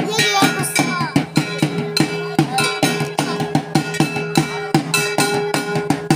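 Live folk drumming: a large double-headed barrel drum (dhol) beaten in a fast, even rhythm of about three strokes a second, with metallic hand-percussion strikes and a held droning tone. A wavering melody line comes in near the start.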